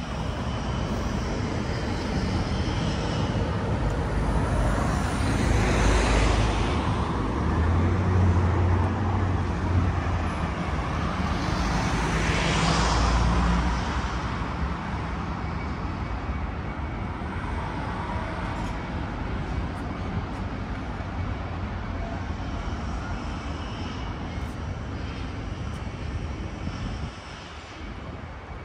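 City street traffic: a steady road noise with vehicles passing, swelling twice, about six and about twelve seconds in, over a low rumble that fades away about halfway through.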